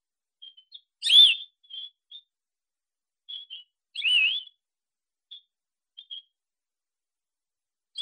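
Scarlet finch calling: two loud, short, clear calls about a second and four seconds in, each bending in pitch, with faint short notes between them. Another call begins right at the end.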